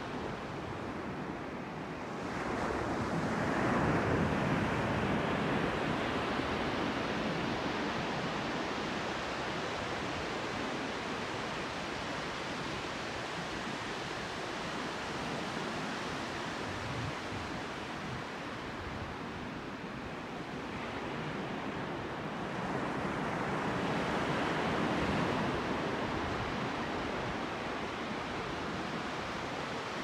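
Pacific Ocean surf breaking and washing up a sand beach in a steady rush, swelling louder twice, a few seconds in and again about two-thirds of the way through.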